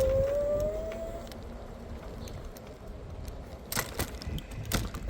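Electric scooter hub motor whining, rising in pitch as it speeds up and fading out about a second in, over a low rumble. Two sharp knocks near the end.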